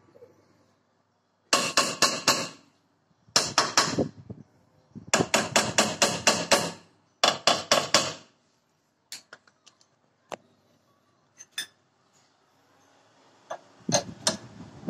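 Rapid hammer tapping on a jammed brake drum held under tension by a bearing puller: four bursts of quick metal-on-metal strikes, about seven a second, to shock the drum loose. A few scattered clicks follow, then a couple of louder knocks of a wrench on the puller's forcing screw near the end.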